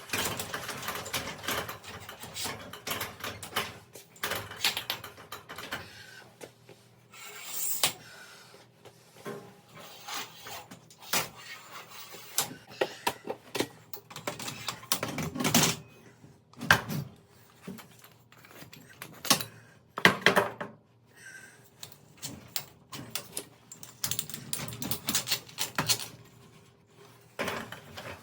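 Irregular metallic clanks, knocks and scrapes as garage door torsion springs and their hardware are slid along and off the steel torsion shaft.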